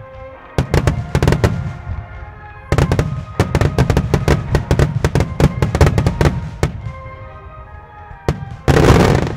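Starmine fireworks: a short run of rapid bangs from launches and bursting shells, then a longer dense volley through the middle, with music playing under it. Near the end comes a lone bang followed by a brief loud rushing blast.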